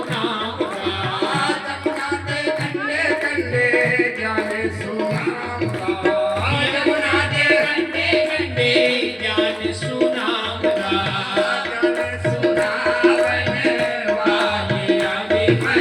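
Devotional bhajan music: tabla keeping a steady, repeating beat under a melody with sustained held notes.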